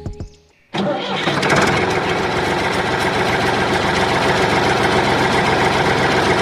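A small motor starts abruptly about a second in and runs steadily with a fast, even buzz.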